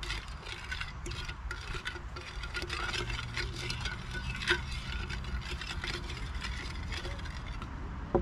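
Wooden spoon stirring in a small stainless steel bowl of marinade, a steady run of light clicks and scrapes of wood on metal, with one sharper knock about halfway through.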